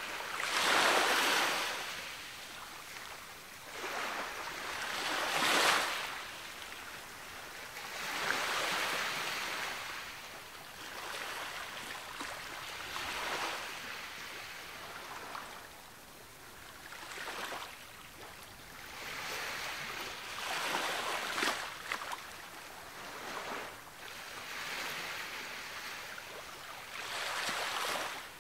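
Ocean waves breaking and washing up on a beach, a swell of surf every three to four seconds, each rising and then fading away.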